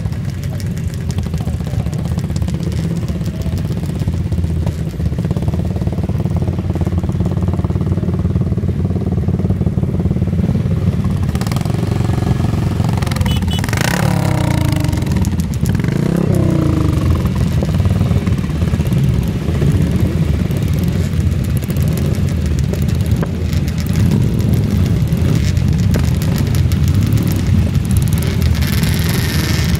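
A group of classic motorcycles idling together in a queue, a steady rumble of several engines at once. Around the middle, engines are revved up and down a few times with throttle blips.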